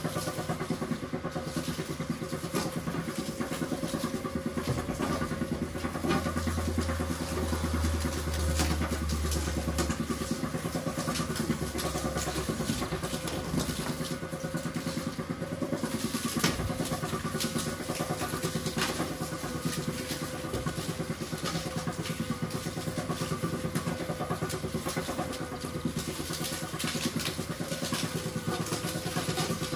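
Motorized sugarcane mill running with a steady mechanical hum, with irregular cracks and snaps as whole cane stalks are fed through its rollers to press out the juice. A deeper low rumble swells between about six and twelve seconds in.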